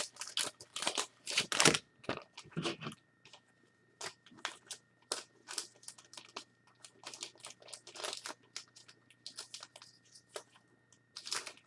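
Faint, irregular clicks and crinkles scattered throughout, over a low steady electrical hum.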